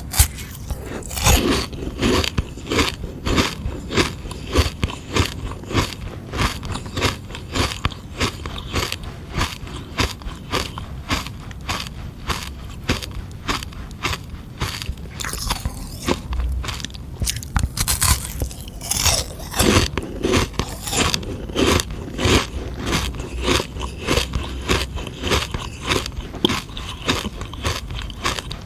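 Frozen sugar-water ice being bitten and chewed: a steady run of crisp, crackling crunches, about two or three a second.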